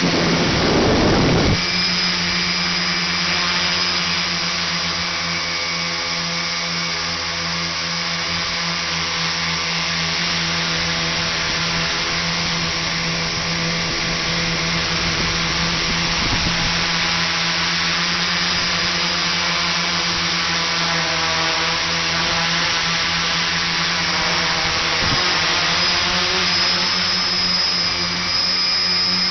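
Tricopter's electric motors and propellers running steadily with a whine, heard close up from the onboard camera, with a brief rush of air noise in the first second or so.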